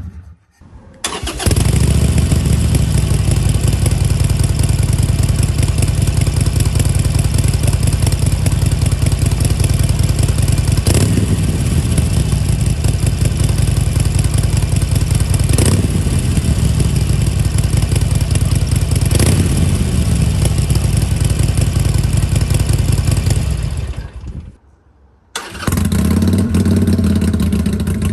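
Harley-Davidson Iron 883's air-cooled V-twin idling loudly through its exhaust, with three short throttle blips that fall back to idle. The engine sound drops out for about a second near the start and again near the end, then picks up again abruptly.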